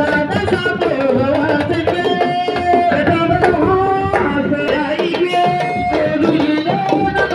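Sabar drums playing a dense rhythm of strokes, with a voice singing long held notes over them.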